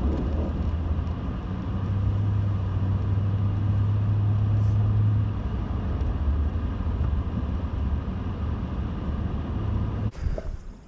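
Pickup truck driving, heard from inside the cab: steady engine and road noise with a low hum that is strongest in the first half and eases about halfway through. It cuts off shortly before the end.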